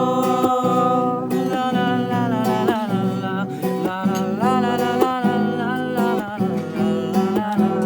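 Music: a Nepali love song with acoustic guitar strumming under a gliding melody line, between sung verses.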